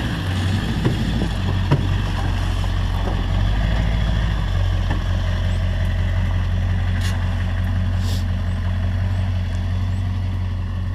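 Ford F-250 pickup's engine running steadily at low revs as the truck crawls along a rutted mud trail. There are two sharp knocks about one and two seconds in.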